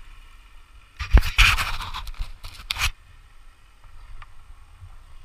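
Close scraping and rustling against the head-mounted camera as the climber moves his rope and gear among the branches, starting about a second in and lasting about two seconds, with a few sharp knocks at the start.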